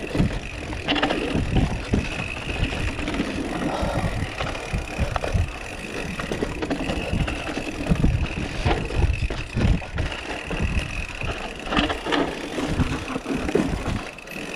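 Mountain bike ridden over a rough trail, heard from the rider's own camera: wind rumbling over the microphone and irregular rattles and knocks from the bumps, with a steady high whine running through.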